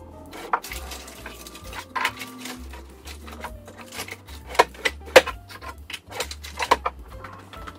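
Irregular sharp knocks and clicks, about a dozen, the loudest about halfway through and again near the end.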